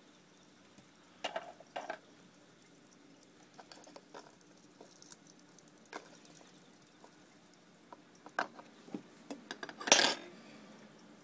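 Scattered light clicks and clinks of feeding tweezers and a plastic enclosure being handled, with a pair of clicks about a second and a half in and a louder clatter near the end.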